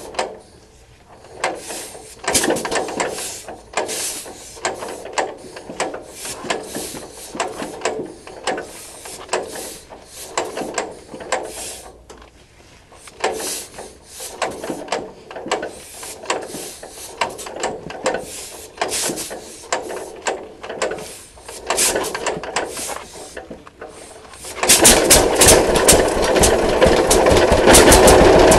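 1941 John Deere B two-cylinder engine on a cold start, turned over by hand at the flywheel again and again, each pull a short irregular burst of sound. About 25 seconds in it fires and runs, much louder, with a fast even beat.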